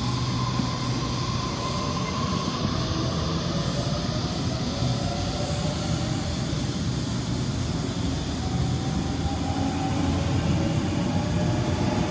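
Electric trains at a station platform. A Waratah suburban electric train pulls away, its motor whine fading over the first few seconds. Then the motor tones and rail rumble of an approaching Oscar intercity train build toward the end.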